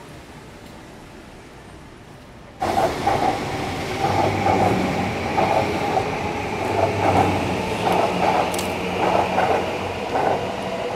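Faint street background, then, after a sudden cut a few seconds in, electric commuter trains running along the tracks with a steady low motor hum and fluctuating wheel-on-rail noise.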